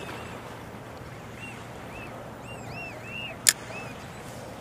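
A series of short, high arched chirps, like bird calls, over a steady hiss of wind and water, with one sharp click about three and a half seconds in.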